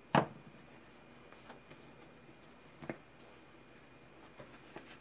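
A metal folding knife set down on a plastic cutting mat with one sharp clack, then a quieter knock about three seconds in and faint light handling noises.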